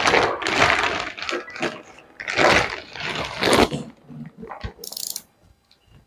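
Thick plastic vacuum packing crinkling and rustling in bursts as it is pulled and handled around a latex mattress topper; the rustling thins out to a few small crackles after about four seconds.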